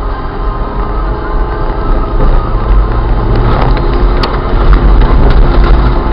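Car engine running and tyres rumbling, heard from inside the cabin while driving over a rough, wet sand and gravel surface; the engine settles to a steady note about two and a half seconds in. Scattered sharp clicks and knocks are heard from about two seconds on.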